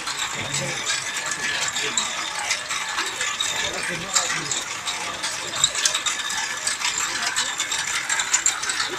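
Frozen gelato being shaved off a turning dry-ice-chilled roller drum by a scraper blade: a steady, gritty scraping full of fine rapid clicks.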